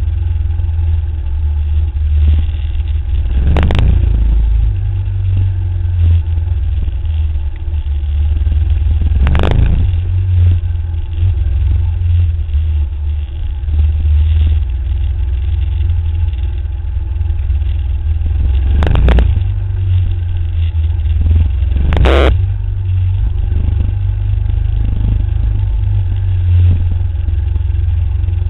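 Motorcycle engine running steadily while riding a dirt track, heard from the bike itself under a heavy low rumble of wind and vibration on the microphone. Four sharp knocks cut through, the last two about three seconds apart.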